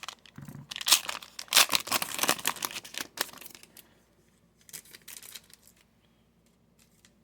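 Foil trading card pack torn open, the wrapper crinkling for about three seconds, with a few softer crinkles around five seconds in.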